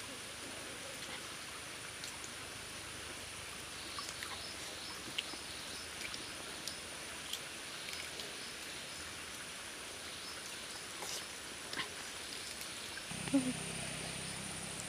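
Faint ticks and crackles of eggshells being peeled by hand, over quiet forest-stream ambience with a steady high thin whine. About thirteen seconds in, a low steady hum starts, and a short louder sound comes with it.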